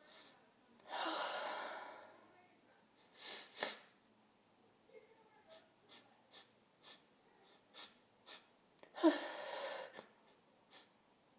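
A woman sneezing twice, about a second in and again about nine seconds in, with short sniffs and breaths between the sneezes.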